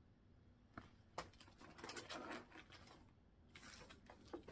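Faint rustling and a few light taps as paper cross-stitch patterns in clear plastic sleeves are handled and sorted inside a cardboard box.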